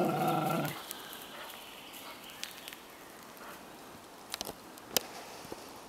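A dog gives a low, drawn-out vocal sound that stops under a second in. Then there is quiet, with a few faint short clicks and snaps.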